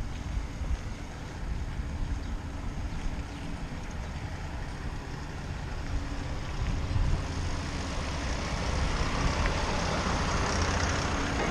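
Wind rumbling on the microphone during a bicycle ride, with traffic noise growing louder over the last few seconds.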